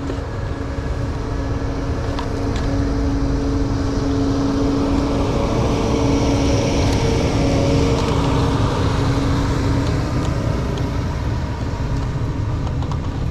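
Snow groomer running close by: a loud, steady engine rumble with a droning tone, strongest around the middle and easing off over the last few seconds.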